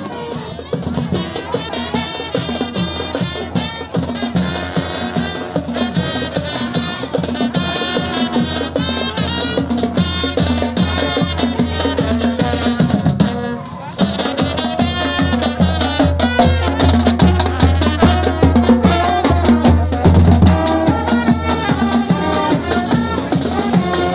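Marching drum band playing: drums keep a steady beat under a brass melody. The playing breaks off briefly about halfway through and picks up again with another band.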